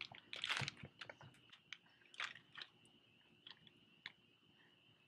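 Crickets chirring steadily in a high, even band, with close soft rustles and clicks over them, loudest about half a second in and dying away near the end.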